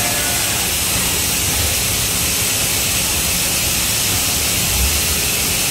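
Haas EC550 horizontal machining center running, with a loud, steady hiss over a low rumble.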